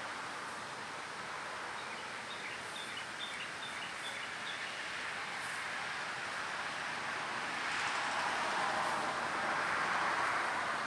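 Outdoor background noise: a steady rushing hiss that swells towards the end, with a few faint bird chirps about two to four seconds in.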